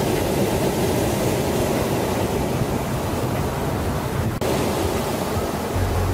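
Steady rushing noise like ocean surf, even and unbroken.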